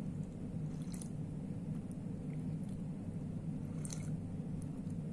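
Coffee being sipped from a cup, with short soft slurps about a second in and again near the end, over a steady low room hum.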